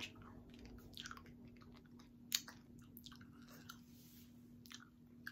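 Jelly beans being chewed: faint wet mouth clicks and smacks at irregular intervals, with one louder click about two seconds in, over a faint steady hum.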